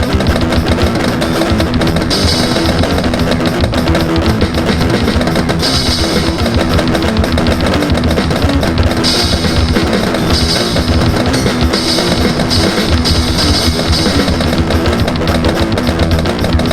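Heavy rock music with a driving drum kit, bass drum and distorted electric guitar, loud and continuous.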